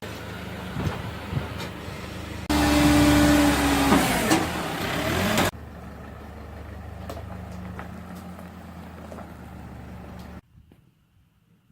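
An engine running steadily, much louder for a few seconds in the middle with a whining tone and gliding pitches. It starts and stops abruptly.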